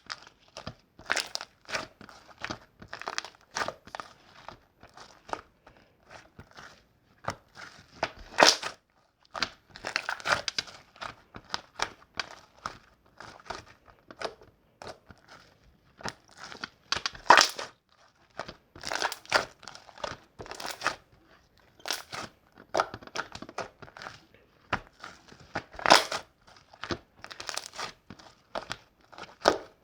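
Slime being squished and pressed by hand, giving irregular crackling pops and clicks in short bursts with brief pauses between them.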